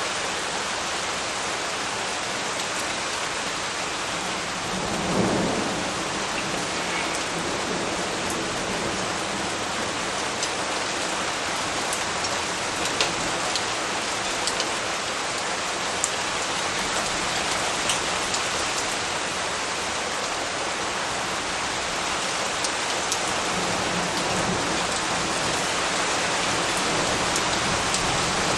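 Tropical rain falling steadily, with a short low rumble of thunder about five seconds in and a fainter one near the end. Scattered sharp drip taps stand out over the hiss of the rain.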